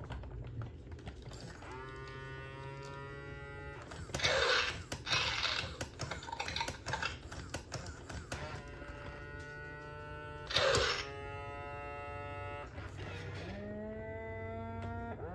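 Mattel D-Rex robotic dinosaur toy sounding its electronic growls through its speaker: three long drawn-out calls, the last rising slightly, with loud hissing breath-like bursts between them and scattered clicking from the toy's mechanism.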